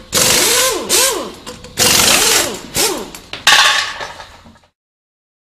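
Power-tool sound effects: a run of loud, harsh bursts, each with a short whine that rises and falls, cutting off suddenly about four and a half seconds in.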